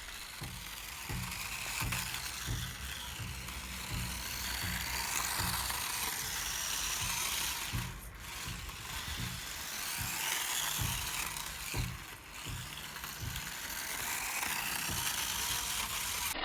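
Micro RC car driving: its small electric motor and gears give a continuous whirring, ratchety buzz that surges and eases with the throttle, with brief lulls about eight and twelve seconds in.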